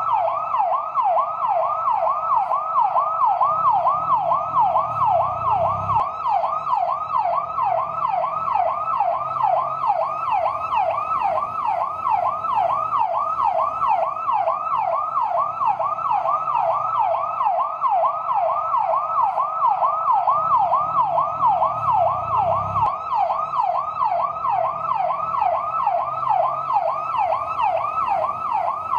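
Fire truck siren sounding in yelp mode: a rapid, unbroken warble sweeping up and down about three times a second. A low rumble underneath swells twice and stops abruptly.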